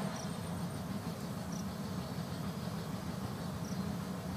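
Steady low rumble of background noise, with three faint, short, high chirps spread through it.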